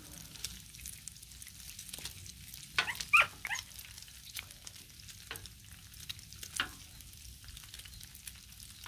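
Thick-cut bacon sizzling and popping steadily on a Blackstone flat-top griddle. A dog gives a few short, high cries about three seconds in, and once more near the end.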